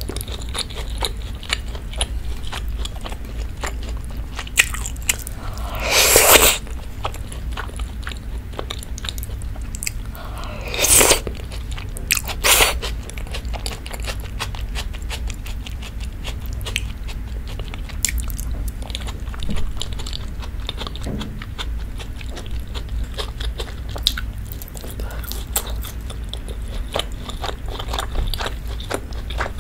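Close-miked chewing and wet mouth sounds of a person eating creamy rose-sauce shrimp spaghetti, with three short, louder slurps about six, eleven and twelve and a half seconds in. A steady low hum runs underneath.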